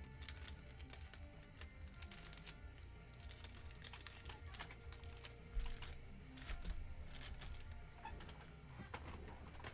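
Faint background music under scattered light clicks and rustles.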